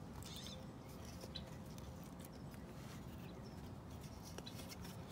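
Faint scraping and small clicks of a pointed metal tool working around an old ceramic pump seal seat, prying it out of a plastic pool pump impeller.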